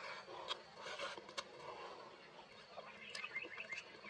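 Close-miked chewing of a mouthful of rice and braised meat, with soft wet mouth noises and small sharp clicks. About three seconds in, a quick run of short high chirps.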